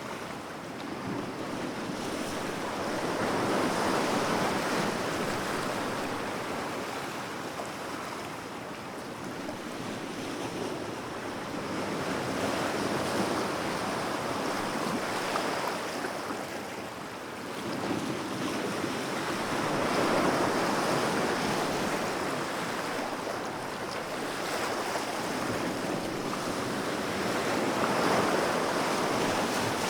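Calm sea waves washing onto a beach, a steady wash of surf that swells and eases every several seconds.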